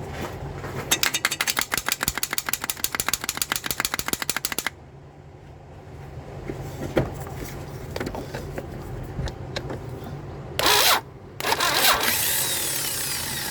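Failing starter on a 2002 Toyota Solara engaging and cranking the engine in a fast, even chatter for about four seconds, then cutting off abruptly without the engine firing. Louder noisy bursts follow near the end.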